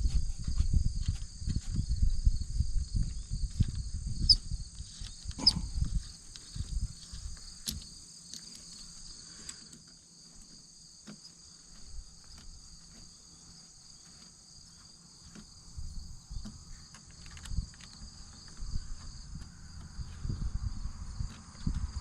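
Steady high insect trilling throughout, with irregular low knocks, rubbing and handling noise from the first six seconds and again from about 16 seconds on, as an Allen wrench tightens the bolt of an aluminium roll-bar clamp.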